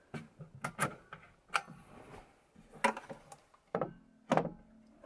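Light wooden knocks and clicks of birch plywood cabinet doors being opened, lifted and fitted together, about eight separate knocks spread unevenly through the few seconds.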